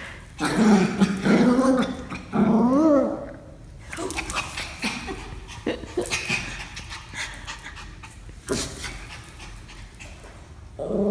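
Pomeranian growling in several bursts during the first three seconds, followed by quieter scuffling and clicks.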